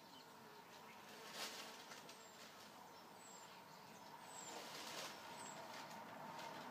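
Near silence: faint room tone, with a couple of soft handling knocks about one and a half seconds and five seconds in.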